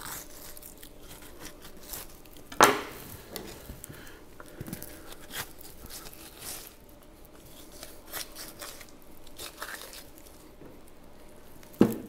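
Boning knife and meat hook working through fat and connective tissue on a beef round: soft tearing and rustling with scattered small clicks, as the round tip is pulled away from the round. A sharp knock stands out about two and a half seconds in, and another near the end.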